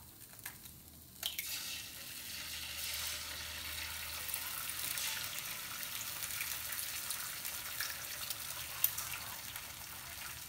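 Egg frying in oil on a hot electric griddle: a steady hissing sizzle with small pops that starts about a second in as the egg hits the plate.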